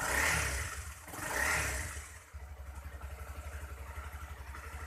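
Honda CRF250L's 250 cc single-cylinder four-stroke engine revved twice in quick succession, then settling back to a steady idle about two seconds in.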